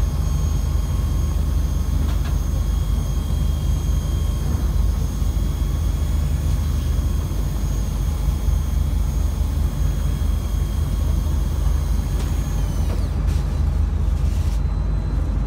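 Electric fishing reel winding in a hooked fish on a bent rod, its motor giving a steady whine that stops about 13 seconds in, over a continuous low rumble.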